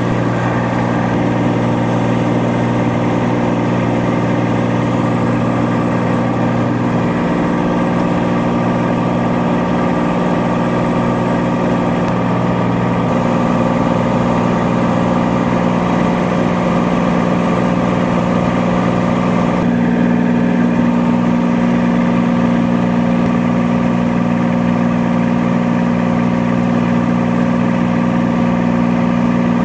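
Cessna 182T's six-cylinder Lycoming engine and propeller droning steadily at climb power, heard inside the cockpit. Its tone shifts slightly a couple of times in the second half.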